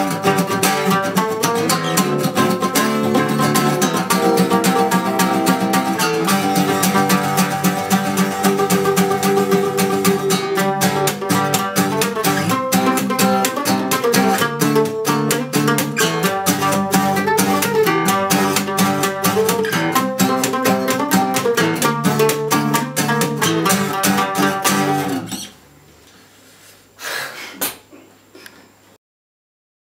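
Mandolin and acoustic guitar playing a fast instrumental duet, with rapid picked notes over strummed chords. About 25 seconds in the playing stops sharply, leaving quiet room tone with one short faint sound a little later.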